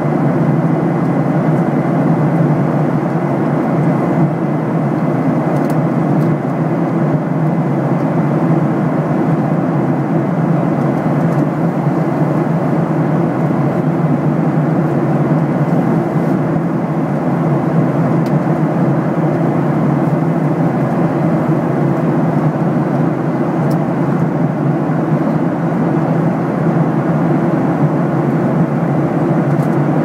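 Steady cabin noise of a jet airliner at cruising altitude: an even, unbroken rush of engine and airflow noise, mostly low and midrange.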